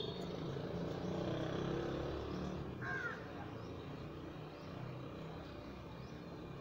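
A crow caws once about three seconds in, over a low rumbling background noise that is loudest in the first half and then fades.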